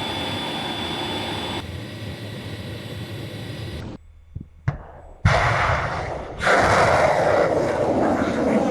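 Loud rushing roar from an Iskander missile system's machinery. It breaks off abruptly several times, with a short quieter gap holding a couple of sharp clicks about four to five seconds in. The roar then returns and grows louder.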